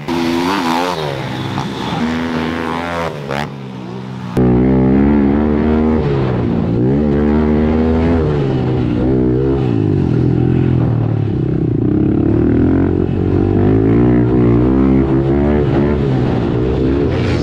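Pit bike engines racing, the revs climbing and dropping again and again as the riders work the throttle and gears. About four seconds in the sound jumps to one engine heard close from a camera on the bike, louder and fuller.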